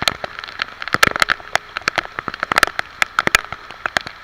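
Rain falling, with large drops striking close to the microphone as irregular sharp taps, several a second, over a steady hiss.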